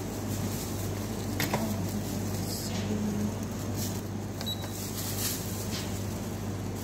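Steady low machine hum with a few faint clicks and soft rustles over it.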